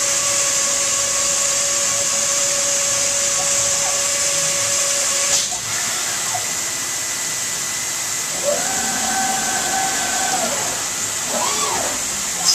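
CNC stone-edge machine grinding a countertop edge with a spinning diamond profile wheel under water spray: a steady hiss with a spindle whine that stops about five seconds in. After that the machine's motors twice whine up, hold and wind down as the head moves off the piece.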